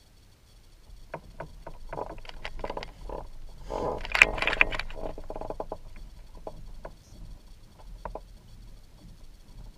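Spinning reel and rod gear clicking and rattling while a fish is played on a bent rod, with a dense, louder burst of rattling about four seconds in, then scattered single clicks.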